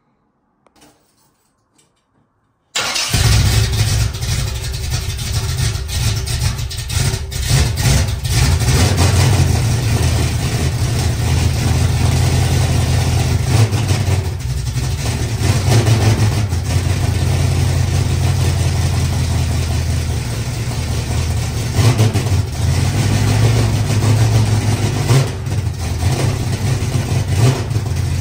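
Chevy Nova's carbureted engine, fitted with a new Quick Fuel Brawler carburetor, starting about three seconds in on its first start in a long time. It catches at once and keeps running, its level rising and falling unevenly, with a few brief revs.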